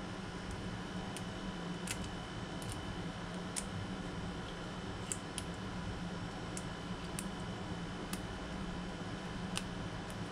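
Faint sharp clicks at irregular moments, about one a second, as fingers strip the succulent pickleweed segments off their stems. Under them runs a steady low hum with a thin high tone.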